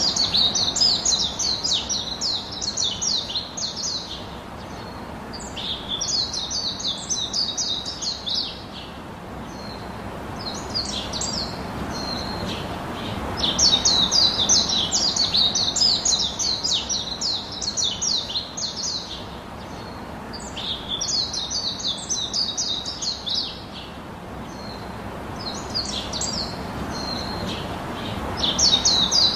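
A bird chirping in quick bouts of rapid, repeated high chirps, each bout lasting a few seconds, with short pauses between.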